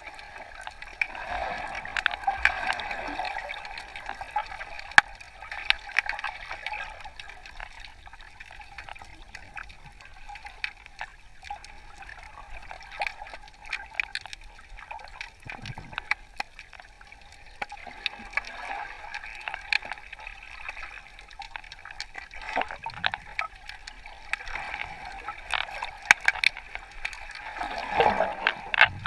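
Water heard on a camera held in the sea while snorkelling: a steady wash of moving, bubbling water with many scattered sharp clicks and a few low swishes.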